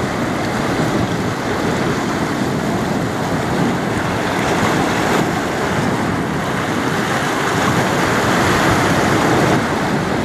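Steady rush of water churned up by a passing bulk cargo ship's stern and propeller wash, mixed with wind on the microphone.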